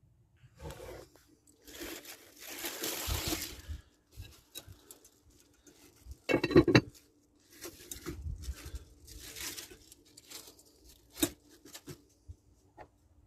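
Irregular rustling and crinkling from things being handled, in short uneven bursts, with a louder crunching scrape about six and a half seconds in and a sharp click near the end.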